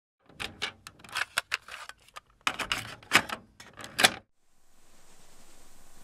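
A quick, irregular run of sharp clicks and clacks for about four seconds. It stops, and a faint hiss slowly swells in its place.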